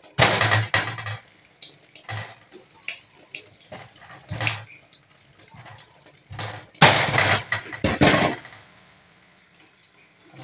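Knife cutting into a tarap fruit on a thick wooden chopping board: irregular knocks and thuds of the blade against the board, a cluster in the first second and a longer run of them about seven seconds in. A kitchen tap runs faintly into a steel sink underneath.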